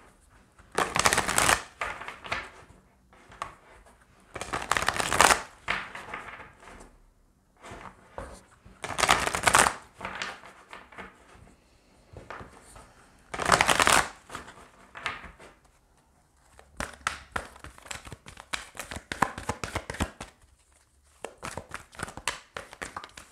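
A deck of tarot cards being shuffled by hand. There are four loud rustling bursts about four seconds apart, then a long run of quick, light card clicks near the end.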